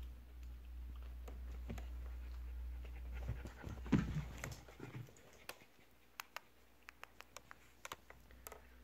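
Shetland sheepdog panting. About four seconds in comes a louder rustling bump, followed by scattered sharp clicks.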